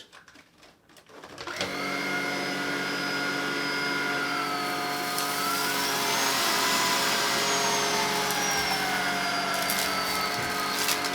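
Tineco Pure One X cordless stick vacuum switching on about a second and a half in and running with a steady motor whine. A few seconds later the pitch goes high and then eases back down: auto mode boosting suction as its dirt sensor detects more debris.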